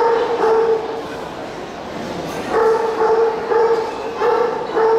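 A dog whining in repeated flat-pitched cries, each about half a second long, several in quick succession, over the hubbub of a crowd.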